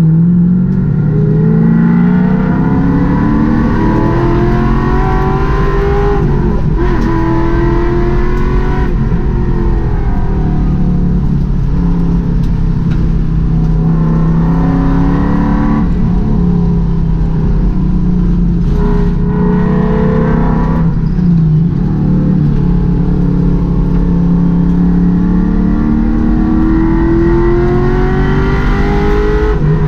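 Race car engine heard from inside the cockpit, revving up again and again, each time climbing in pitch for several seconds and then dropping as the driver shifts or lifts for a corner.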